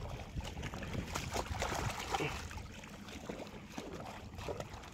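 Irregular splashing steps wading through shallow floodwater, with a low rumble of wind on the microphone.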